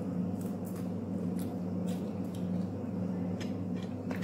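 Someone eating: chewing and small mouth clicks, with a spoon clinking against a glass bowl near the end, over a steady low hum.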